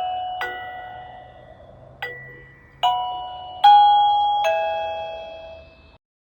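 KERUI KR-M523 wireless doorbell receiver playing a chime ringtone: five bell-like notes of different pitches at uneven intervals, each struck and then ringing out and fading.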